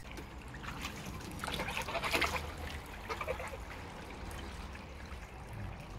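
Mallard ducks calling on a pond; partway through, a steady trickle of water from a garden hose running into a small plastic garden pond.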